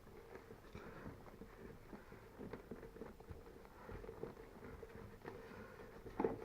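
Faint irregular small knocks, taps and rubbing as a metal seat frame is worked into a new rubber motorcycle seat, with a couple of louder knocks near the end.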